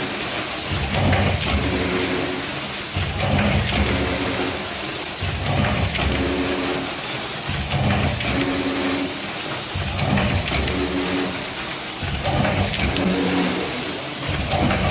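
Multi-lane stick-pack packaging machine running through its repeating fill-and-seal cycle: a mechanical rumble with a short steady hum and a brief hiss, repeating about every two and a quarter seconds.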